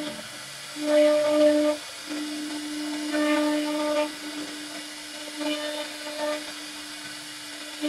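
CNC router spindle running with a steady high whine as its carving bit routes into wood. The sound swells louder and harsher about a second in and again around three seconds in, then drops back to a thinner whine as the cut lightens.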